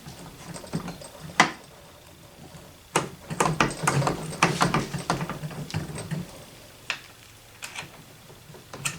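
Metal parts of a Barrett Model 95 .50 BMG rifle clicking and scraping against each other as they are worked by hand to line up the pin holes, which are not lining up. A sharp click about a second and a half in, a rapid run of clicks from about three to six seconds, and a few more clicks near the end.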